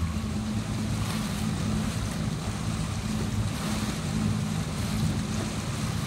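A boat's motor running with a steady low hum, under wind rushing across the microphone and the wash of choppy water.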